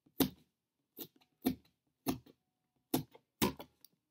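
Scissor tip stabbed repeatedly into corrugated cardboard, poking holes: a series of sharp crunching pops, about two a second.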